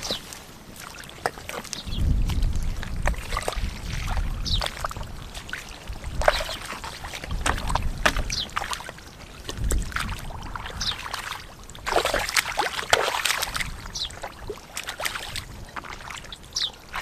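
Shallow muddy water splashing and sloshing irregularly as it is worked through by hand, with a low rumble that comes and goes.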